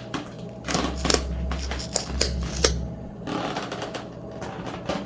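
A run of rapid mechanical clicks and knocks over a low hum, with the sharpest knocks about a second in and again near two and a half seconds.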